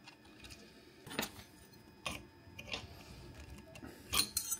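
Small metallic clicks and clinks, about five spread over a few seconds, two of them close together near the end: a surfacing bit and collet nut being handled and tightened onto a CNC router's spindle.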